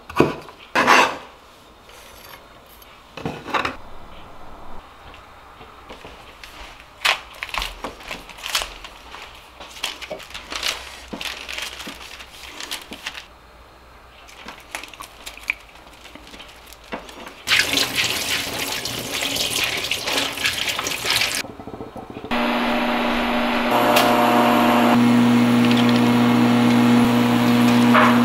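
Knife strikes on a wooden cutting board as carrots are julienned, then scattered light clicks of handling. Past the middle comes about four seconds of rushing water, and for the last six seconds a steady hum with a low drone runs under the pot on the stove.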